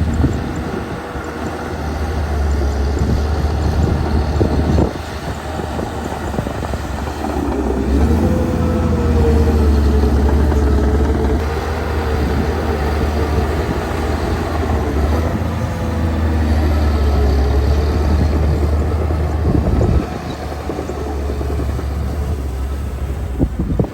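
Caterpillar 816D's diesel engine working under load with a deep steady drone, its pitch rising and falling with engine speed. It eases off sharply about five seconds in and again near twenty seconds, then picks up again.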